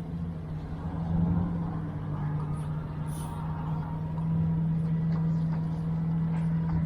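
Boat motor running with a steady low hum.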